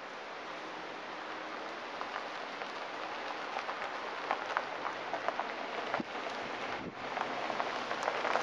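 Steady outdoor hiss with a crackling crunch over gravel that grows denser and louder toward the end, as of something approaching over the gravel road.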